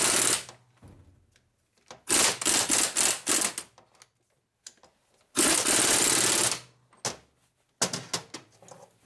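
A power impact tool hammering in four short bursts of about a second each, with pauses between. It is driving a tight-fitting transmission part a little further on with each burst.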